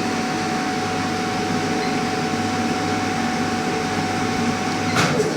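Vacuum pump of a SAT-680 autoclave running steadily with a hum and a constant whining tone, drawing vacuum for the chamber's leak test. There is a sharp click near the end.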